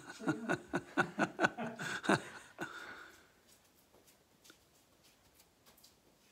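A man laughing, a run of short falling 'ha' pulses that dies away after about three seconds, followed by faint soft taps of a paste brush against the wall.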